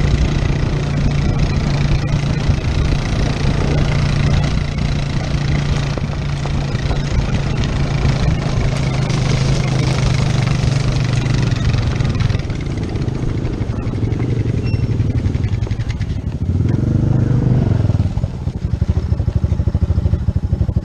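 ATV engine running steadily under load while towing a dirt bike on a strap, with wind and trail noise while moving. About twelve seconds in the engine note drops, and near the end it settles into an even putter at idle as the quad comes to a stop.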